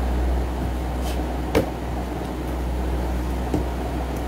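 Steady low electrical or machine hum, with a sharp click about a second and a half in and a fainter click near the end.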